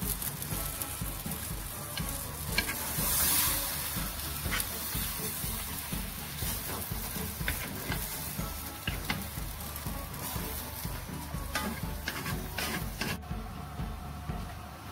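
Sweet potato leaves and prawns sizzling in a stainless-steel wok as they are tossed and stirred with a wooden spatula, with scattered light knocks of the spatula on the pan. Near the end the sizzle turns duller as the glass lid goes on.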